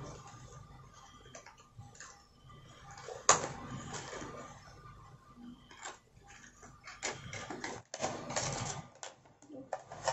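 Light plastic clicks and crinkling from small aquarium air-line parts and their plastic packaging being handled and opened, with one sharp, loud click about a third of the way in and a busier run of clicks and rustling in the second half.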